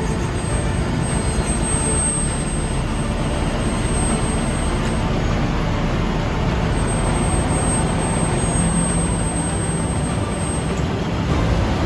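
Heavy engines running steadily: a loud, constant low rumble with a wash of noise above it.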